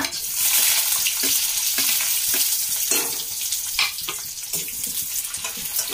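Chopped onion sizzling as it hits hot oil in a kadhai, the hiss swelling about half a second in, with scattered sharp crackles.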